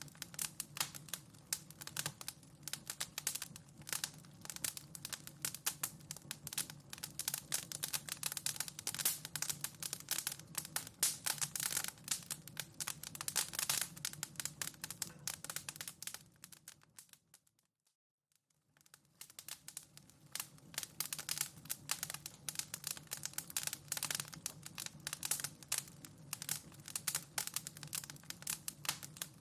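Wood fire in a fireplace crackling and popping steadily. About two-thirds of the way through, the crackling fades out to near silence for a second or so and fades back in.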